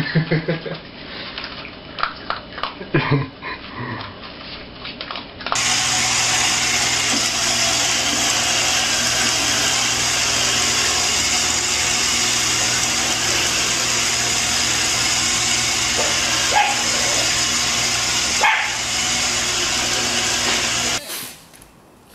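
An English bulldog puppy eating off a plate, with a few short grunts. Then, after about five seconds, a robot vacuum starts running with a steady motor hum and brush noise, which cuts off suddenly near the end.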